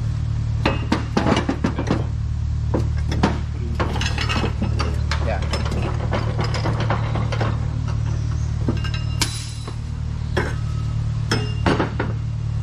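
Irregular metal clinks and knocks as an aluminium marine-engine expansion tank and its fittings are handled in a bench vise, with one louder ringing clink about nine seconds in, over a steady low hum.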